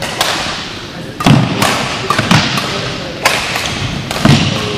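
Badminton rackets striking a shuttlecock in a fast doubles rally, a quick run of sharp hits, mixed with heavier thuds of players' feet landing on the court floor.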